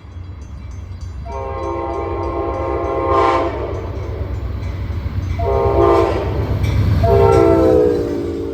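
Passenger train locomotive's multi-chime air horn sounding three blasts, long, short, long, over the low rumble of the approaching train, which grows louder. The pitch of the last blast drops as the train passes.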